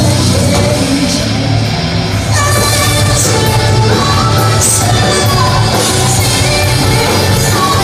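Live hard rock band playing very loud, heavy bass under guitars and drums, with a female lead vocal coming in about two seconds in. It is heard from within the crowd under a large hall-like roof.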